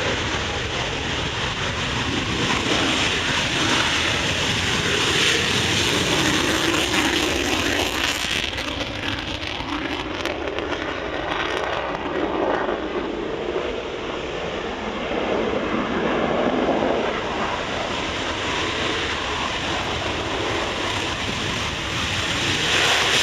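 Panavia Tornado jets, each with twin RB199 turbofans, taking off at high power. The loud, continuous jet noise swells and eases as the aircraft pass, with a sweeping change in pitch in the middle.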